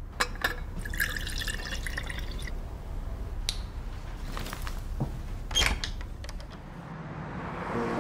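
Scattered clicks and short bright ticks over a low steady hum, thickest in the first two seconds, with single sharp clicks about three and a half and five and a half seconds in, and a rising swell near the end.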